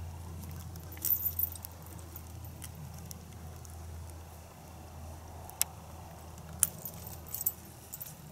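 Metal clinks and jingles of a steel anchor cable, quick-release ring and dog-proof raccoon trap being clipped together by hand: a quick cluster about a second in, then a few single sharp clicks later on.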